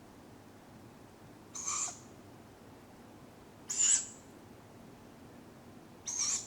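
Tawny owlets giving their hoarse, screechy food-begging call, three short calls about two seconds apart.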